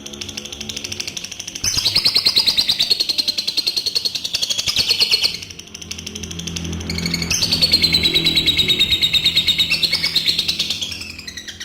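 Adult lovebird's long 'ngekek' song: a rapid, evenly repeated high chattering trill carried on in phrases of several seconds, with short pauses between them.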